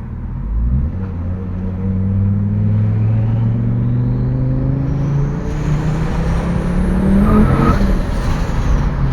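Fiat Marea Turbo's five-cylinder turbocharged engine accelerating hard under boost, its note rising for several seconds with a rising turbo whistle. Near the end the throttle is lifted: a short whoosh ('espirro') and the turbo flutter from the boost backflow, with the turbine spinning down.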